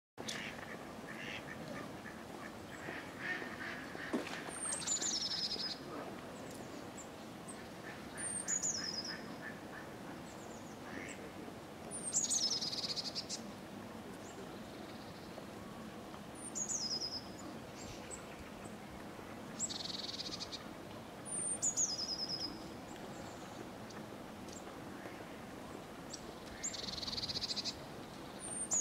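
Mallards quacking now and then, with a small bird's short, high, falling call repeating every few seconds.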